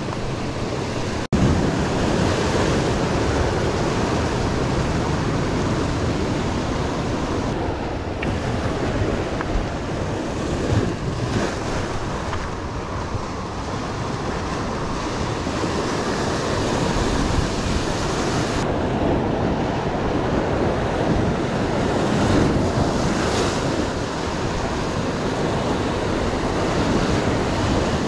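Sea waves breaking and washing on the shore in a steady rush, with wind buffeting the microphone.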